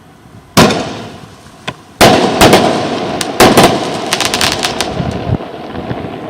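Fogos Ouro 'Luzes Fantásticas' firework going off. A loud bang comes about half a second in, then a small pop, then two more loud bangs at about two and three and a half seconds; each trails off, and a scatter of sharp crackles follows.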